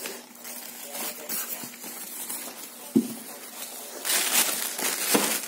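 Unboxing packaging being handled: light rustling with a sharp knock about three seconds in, then louder rustling toward the end.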